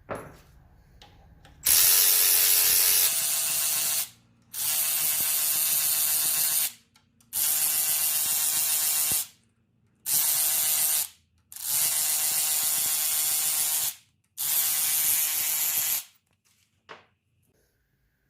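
Powered ratchet running in six bursts of a second and a half to two and a half seconds each, spinning out the already broken-loose cam phaser bolts on a Ford Coyote 5.0 V8.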